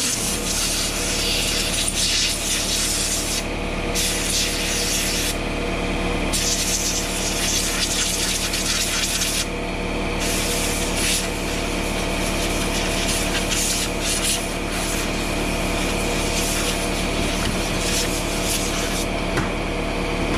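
High-pressure spray cleaning a Husqvarna chainsaw powerhead. A machine hums steadily underneath while the spray hiss drops out and comes back three times.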